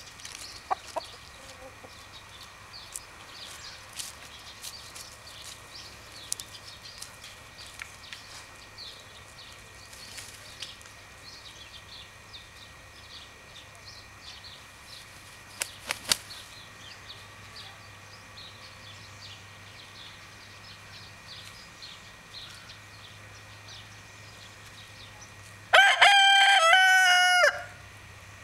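A young Agent rooster, a Danish chicken breed, crows once near the end: one loud crow lasting under two seconds. Faint chirping runs in the background before it.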